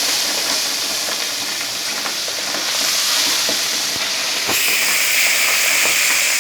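Fish frying in hot oil: a steady sizzling hiss with scattered small pops and crackles. The hiss changes in tone about four and a half seconds in.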